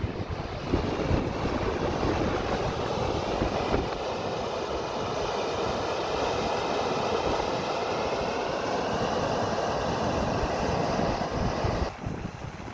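Steam pouring from a fumarole vent: a steady rushing hiss, with wind buffeting the microphone underneath. The hiss drops off sharply near the end.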